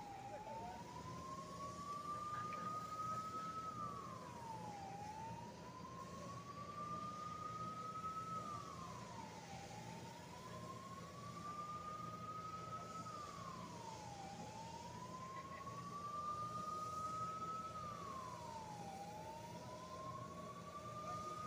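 Emergency-vehicle siren on a slow wail: each cycle climbs gradually for about three and a half seconds and then drops quickly, repeating roughly every four and a half seconds. A steady low hum runs underneath.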